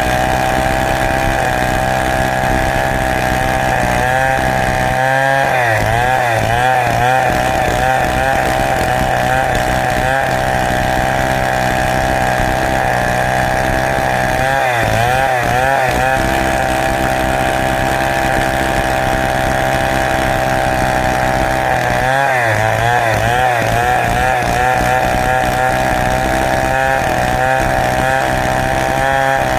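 Two-stroke Stihl chainsaw running at high revs while ripping a large teak log lengthwise. The engine note holds steady, then wavers up and down for a second or two several times as the cut goes on.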